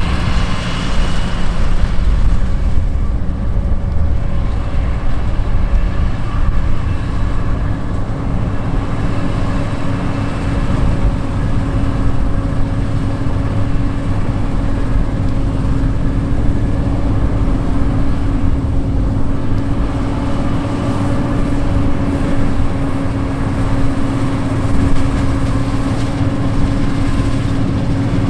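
John Deere 9510 Maximizer combine running steadily under load while harvesting wheat: its 8.1-litre turbocharged six-cylinder diesel and threshing machinery give a constant low rumble with a steady hum.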